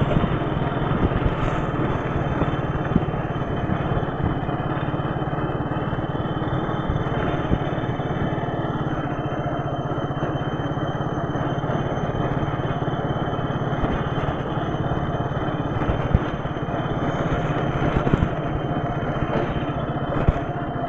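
Motorcycle engine running steadily while riding along at low speed.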